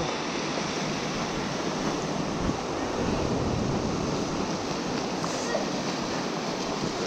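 Small surf waves washing up a flat sandy beach: a steady, even rush of breaking water, with some wind on the microphone.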